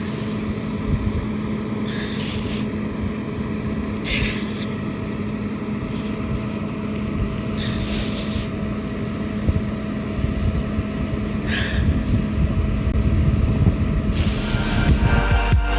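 An engine running steadily under a low rumbling noise, with a few short hissing bursts every few seconds.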